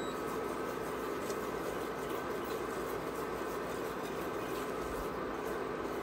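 Sauce sizzling and bubbling in a cast-iron skillet while a silicone whisk stirs through it, a steady hiss with a few faint ticks.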